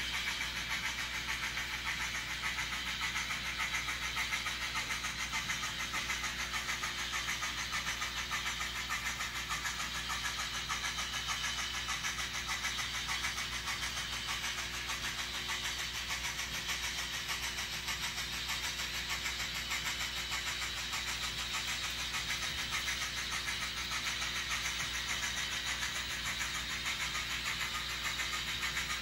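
N scale model trains running on the layout: the small motors and wheels on the track make a steady, unbroken mechanical running noise.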